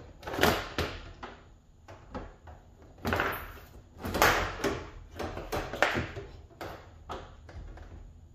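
Clear vinyl hose being pushed and pulled through a hole in a stainless-steel wall panel: irregular scraping, rubbing and knocking, loudest about half a second in and again from about three to six seconds in.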